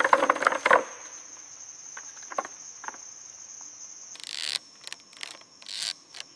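Steady, high-pitched insect chirring, like crickets in a forest, with a cluster of loud crackling clicks in the first second and a couple of short rustling bursts later on.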